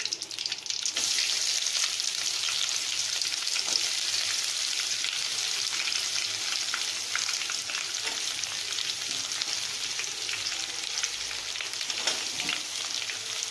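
Sliced onions dropped into hot oil in an aluminium kadai: a steady frying sizzle starts about a second in, with a steel spoon scraping and stirring through the onions.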